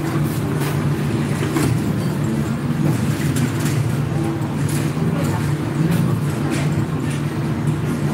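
Steady low mechanical hum, like a running engine, with a few light clicks over it.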